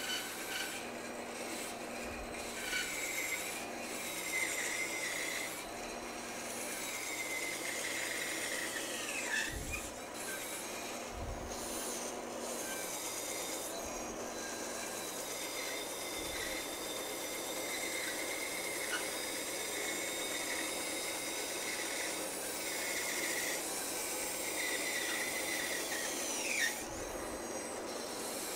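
Bandsaw running and cutting through a thick wooden spoon blank: a steady rasping cut with a high whine that drops in pitch a couple of times.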